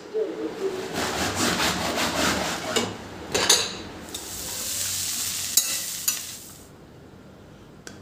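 Kitchen sounds: steel utensils clinking and rattling, a sharp metal clank about three and a half seconds in, then a steady hiss like food sizzling in a pan that stops shortly before the end.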